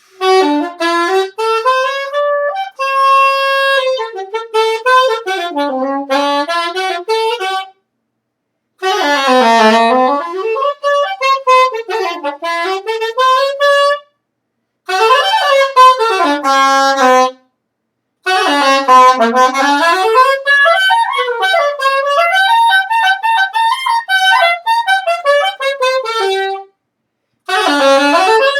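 Solo saxophone improvising freely: runs of notes that swoop down and back up, in five phrases broken by short pauses, with no steady beat.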